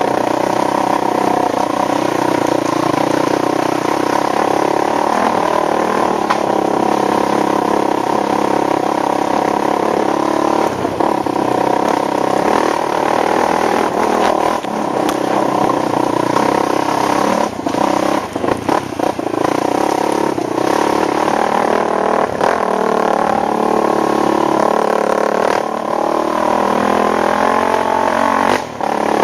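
ATV engine running with the throttle varying, its pitch rising and falling, with scattered knocks and rattles.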